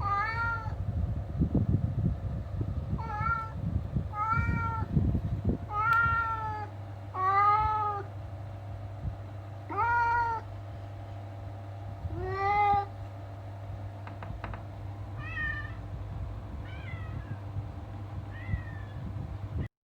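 Domestic cat meowing repeatedly, about ten drawn-out meows a second or two apart, the last few fainter. Low rumbling handling noise under the first few meows.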